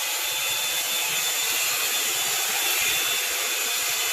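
Revlon One-Step hair dryer brush running, a steady rush of blown air with a faint high whine from its motor.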